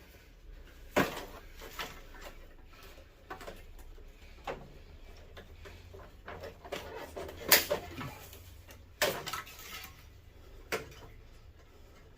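Wire cutters snipping through wires on a CRT TV's circuit board: sharp, irregular snips and clicks every second or so, the loudest about seven and a half seconds in.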